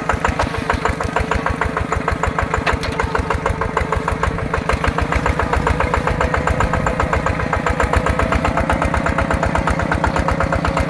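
Small tractor's single-cylinder diesel engine running steadily at a constant speed, with an even, regular firing beat.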